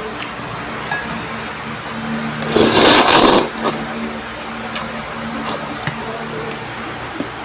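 A person loudly slurping food off a spoon, one rushing suck about a second long a little under three seconds in, with a few light clicks of a metal spoon against a ceramic bowl. A steady low hum runs underneath.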